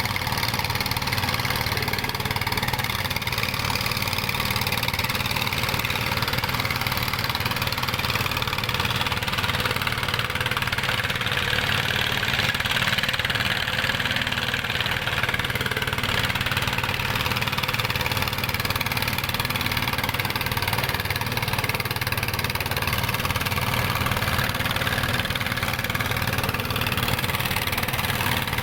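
Dongfeng single-cylinder diesel engine (a 'dompeng') of a small gold-mining rig, running steadily at a constant speed with an even, rapid knock.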